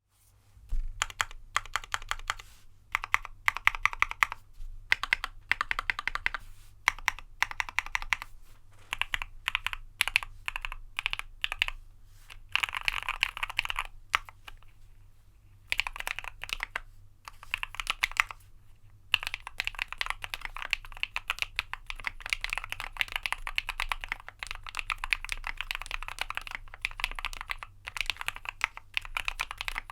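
Typing on a Keychron Q1 mechanical keyboard with lubed Turquoise Tealios linear switches, a PE foam mod and Dolch PBT keycaps: quick runs of keystrokes in bursts, broken by short pauses.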